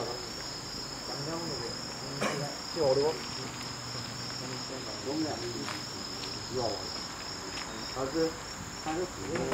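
Steady high-pitched insect chirring throughout, with short voice-like sounds breaking in now and then, the loudest about three seconds in.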